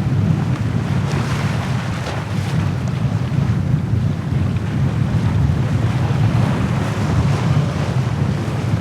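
Steady wind buffeting the microphone over the rush of water along the hull of a VO65 racing yacht under sail.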